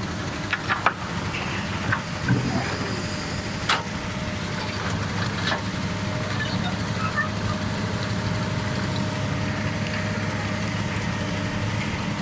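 Komatsu excavator's diesel engine running steadily under work, with a few sharp knocks in the first few seconds.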